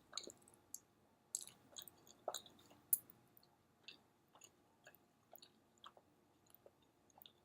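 Close-up mouth sounds of chewing a bagel sandwich with egg and cheese: soft irregular wet smacks and clicks, a few louder ones in the first three seconds, then fainter.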